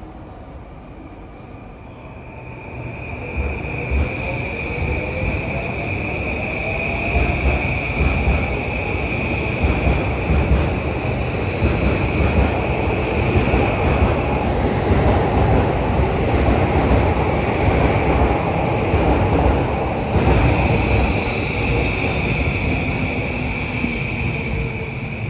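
A JR Yamanote Line E235-series electric commuter train pulling out of the station. Its traction-motor whine rises in pitch as it speeds up, and the wheel and rail rumble grows louder. A steady high-pitched whine runs on above it.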